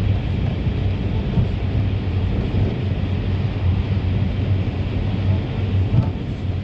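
Steady engine and road noise inside a moving route minibus, a low drone under an even rumble.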